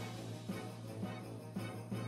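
Background music: a steady low sustained tone under soft beats about twice a second.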